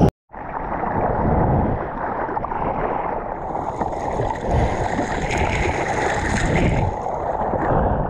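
Seawater sloshing and splashing around a surfboard as a surfer paddles through choppy water, picked up on a board-mounted action camera, with uneven surges from the paddle strokes. The sound drops out completely for a moment just after the start.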